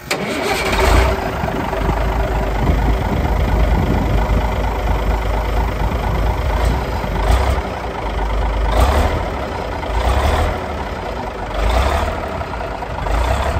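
The diesel engine of a 1973 Atkinson Borderer lorry starts up and runs with a heavy low rumble. It swells louder a few times.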